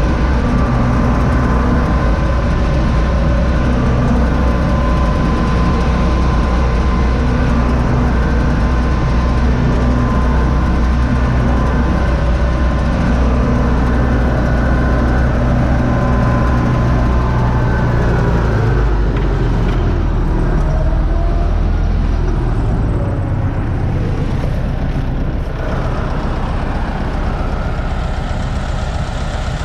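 Universal U650 tractor's diesel engine running steadily, heard from inside the cab. About two-thirds of the way through, the engine note shifts and the sound gets a little quieter.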